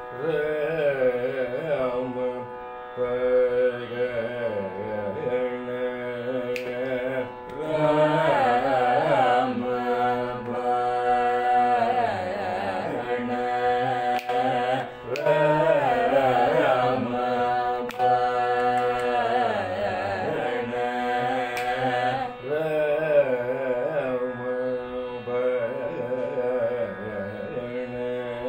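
Carnatic classical singing in raga Saveri: a voice sustains and ornaments notes with wide oscillating slides over a steady drone, pausing and resuming in phrases.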